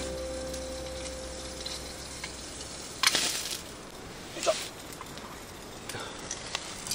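Wood campfire crackling, a steady low hiss with scattered small pops. A louder rustling hiss comes about three seconds in, and a short one with a brief squeak about a second and a half later.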